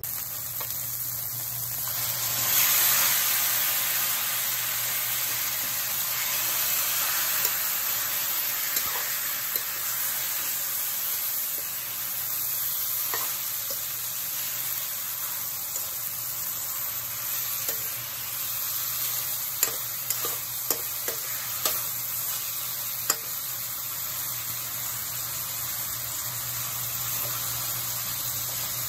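Chicken pieces with onions and peppers sizzling steadily in a wok while being stirred, the utensil scraping and tapping against the pan now and then. The sizzle swells briefly about three seconds in, and a run of sharp taps comes about twenty seconds in.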